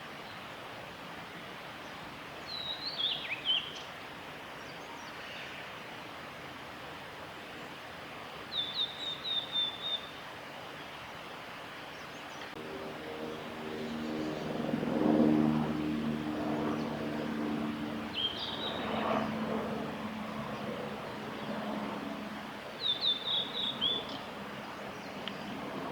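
Male blue-and-white flycatcher singing short phrases four times, each about a second long, over a steady background hiss. In the middle a motor vehicle's engine hum grows louder, peaks, and fades away over several seconds.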